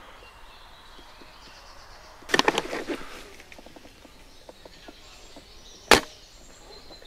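A burst of crackling clicks about two and a half seconds in, then a single sharp crack near the end, the loudest sound: the shot of a spring-powered L96-type bolt-action airsoft sniper rifle.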